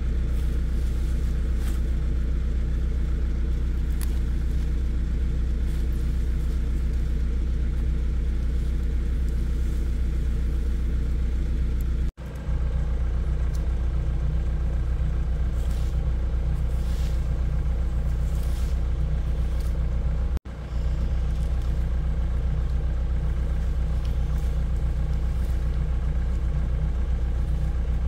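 Diesel engine of a tracked excavator idling steadily, a low, even hum.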